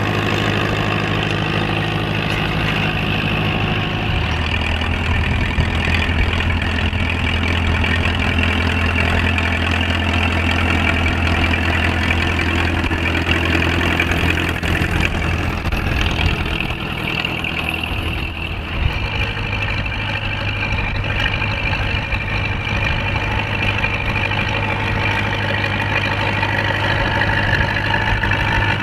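Diesel engines of vintage Fortschritt tractors pulling ploughs, running steadily under load as a low, even hum. The engine pitch changes about four seconds in and again about two-thirds of the way through.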